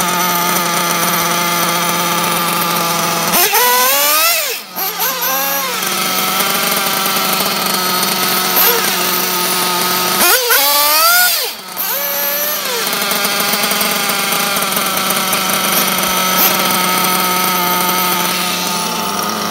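Nitro glow engines of 1/8-scale RC buggies idling steadily with a high, buzzy note while being warmed up, with two short throttle blips about three and a half and ten and a half seconds in, the pitch rising then falling back.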